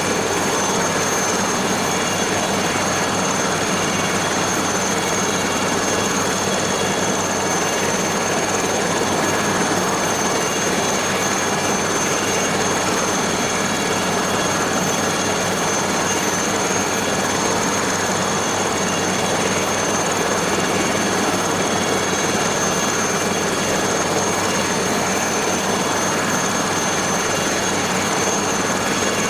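Aérospatiale SA315B Lama helicopter running steadily, its Turbomeca Artouste turboshaft giving a high, steady whine over a dense engine and rotor noise.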